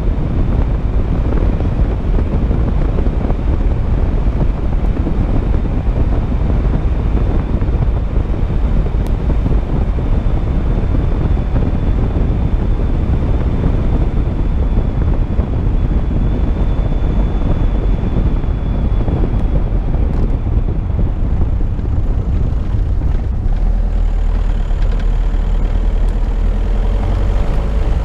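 Car driving along a gravel road at about 60 km/h: a steady rumble of tyres on loose gravel with engine and wind noise. The low rumble grows heavier for the last few seconds.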